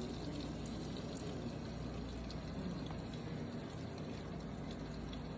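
Floured chicken cutlets frying in hot oil in a pan: a steady sizzle with faint scattered crackles.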